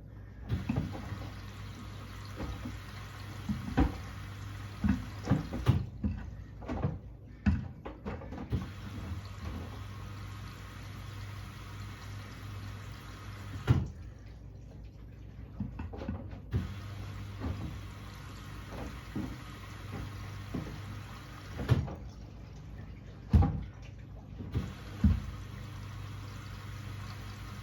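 Hoover H-Wash 600 washing machine mid-wash: water sloshing in the turning drum, with irregular dull thuds from the wet load over a steady low motor hum.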